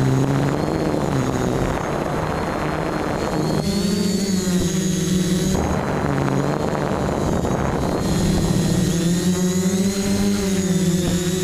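FPV quadcopter's electric motors and propellers buzzing, heard from the craft's own camera, the pitch drifting up and down with the throttle. In parts a rushing air noise covers it, dropping away for a couple of seconds near the middle and again in the second half.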